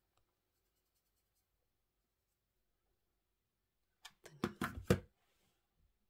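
A quick cluster of handling taps and knocks, about seven in roughly a second, starting about four seconds in, from a hand close to the microphone.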